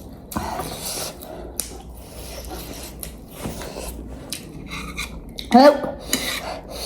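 Scraping and rubbing of utensils against a bowl while eating noodles, in scattered short strokes. About five and a half seconds in comes a brief pitched vocal sound, like a hum.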